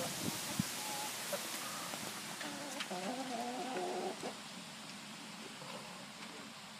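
Chickens calling: a run of short pitched clucks and squawks from about two and a half to four seconds in, after a couple of soft knocks near the start.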